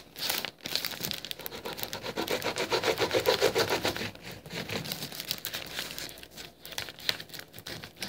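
A metal utensil scraping and stirring in a pan of butter, a rapid rough scraping that is loudest a couple of seconds in.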